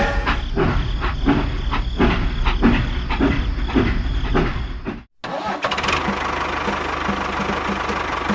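Engine-like running sound with rhythmic knocks, stopping abruptly about five seconds in and followed by a steadier running hum with a fast, even pulse.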